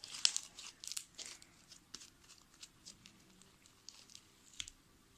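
Fluffy slime made with glue and shaving cream being stretched and kneaded by hand: sticky crackles and small pops, busiest in the first second or so, then sparser.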